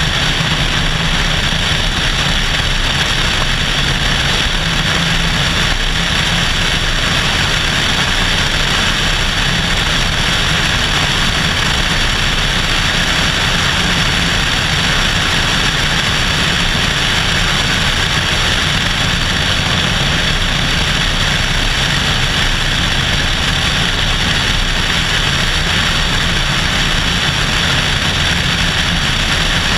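Cessna 172SP in flight: its four-cylinder Lycoming engine and propeller droning steadily, mixed with rushing airflow over a camera mounted outside the fuselage.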